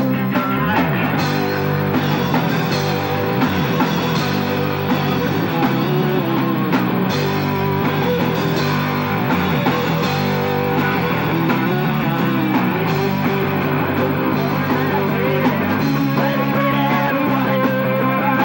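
Live rock band playing: electric guitars, bass and a drum kit, loud and unbroken.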